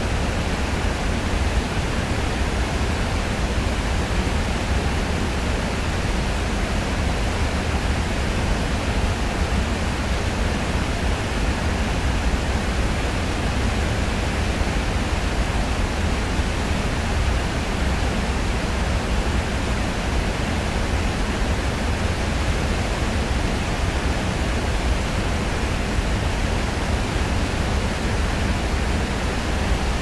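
Waterfall rushing steadily: a constant, even wash of falling water, deepest and strongest in the low end, with no breaks or changes.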